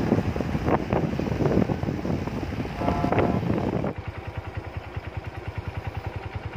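Wind buffeting the microphone over motorcycle engines while riding. About four seconds in it cuts to a quieter, steady motorcycle engine idling, pulsing about ten times a second.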